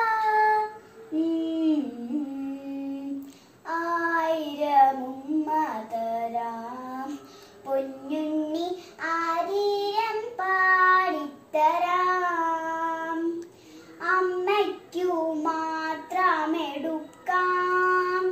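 A young girl singing solo and unaccompanied, in sustained phrases with short breaks for breath between them.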